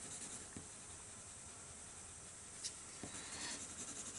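Pencil shading on drawing paper: faint, scratchy strokes, with a sharp little click about two and a half seconds in.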